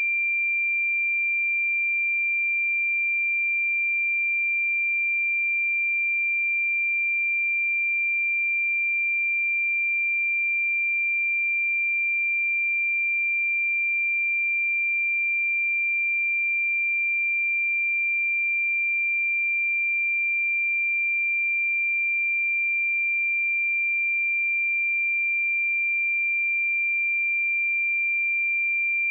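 A pure 2372 Hz sine-wave test tone, held at one steady pitch and level with no other sound.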